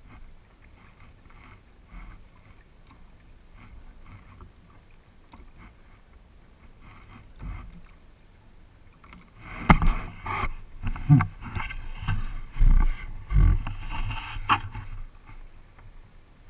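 Faint water lapping and small ticks on a kayak hull. About halfway through comes a few seconds of loud, irregular knocks, thumps and rubbing as the camera's pole mount is swung round.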